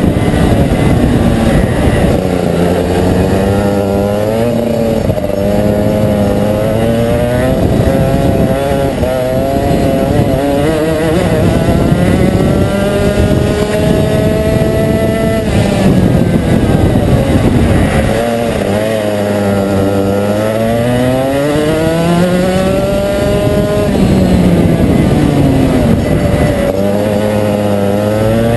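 Rotax 125cc single-cylinder two-stroke kart engine at racing speed, heard on board: the revs climb along each straight and drop sharply into the corners, several times over. The longest climb ends in a sudden drop about halfway through.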